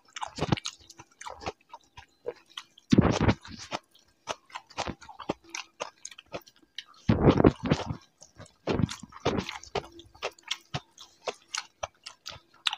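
Close-up chewing and mouth sounds of people eating rice and mutton curry by hand, with many short wet clicks and smacks and a few louder bursts about three and seven seconds in.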